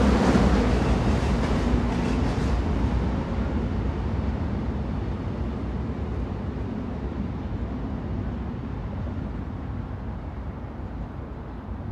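Train noise: a steady rumbling rush that fades away gradually, losing its high hiss after a few seconds.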